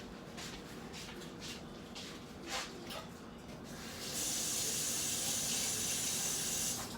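Faint scattered taps, then about four seconds in a steady hiss that starts abruptly, lasts nearly three seconds and cuts off suddenly.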